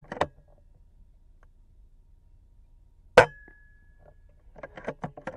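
A single shot from an FX Impact M3 PCP air rifle about three seconds in: a sharp crack, with a clear ringing tone that lingers for about a second. A short click comes at the start, and a quick run of metallic clicks and knocks comes near the end.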